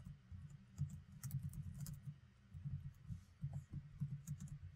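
Faint typing on a computer keyboard: irregular, quick keystrokes.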